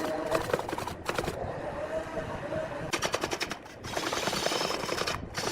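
Rapid clattering of a turning tool against a spinning log on a large wood lathe, in two bursts of about a second each.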